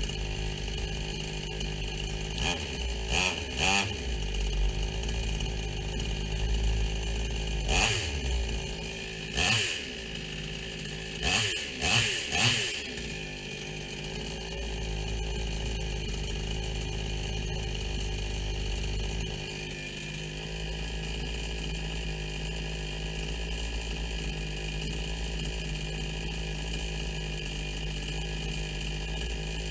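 Brand-new Huyosen 62cc two-stroke chainsaw running on its first startup: several short throttle revs in the first half, each rising and falling, then it settles to a steady idle.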